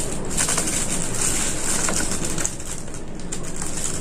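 Tissue paper rustling and crinkling as it is pulled out of a small gift box, over a steady hiss.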